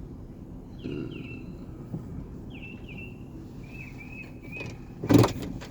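A vehicle engine running low and steady, with a bird giving repeated short falling chirps, often in pairs. A loud thump about five seconds in.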